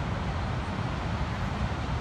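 Steady roar of ocean surf breaking on a sandy beach, with wind buffeting the microphone as a low rumble.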